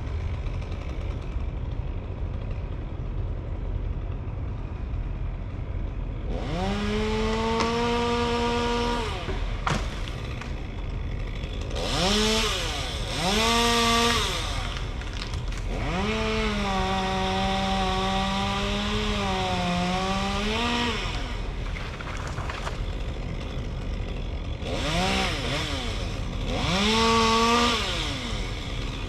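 Two-stroke chainsaw idling, then revved to full throttle six times: a three-second run, two short blips, a five-second run whose pitch sags slightly near the end, and two more short blips.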